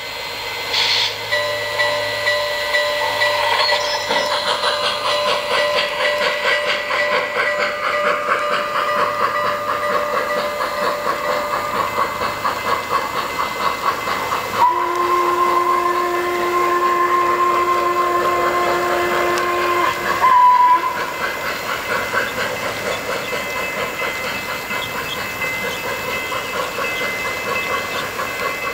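Onboard sound system of an O-scale model Norfolk & Western Y6b articulated steam locomotive working hard under a coal train: steady rhythmic steam chuffing, with a short burst of steam hiss about a second in. About halfway through comes a long whistle blast of around five seconds, followed by a short toot.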